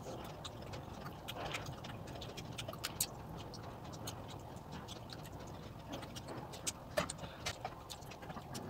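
Close-up hand-eating sounds: fingers picking food from metal bowls and working it on a metal plate, and chewing, heard as faint scattered clicks and soft taps at irregular intervals.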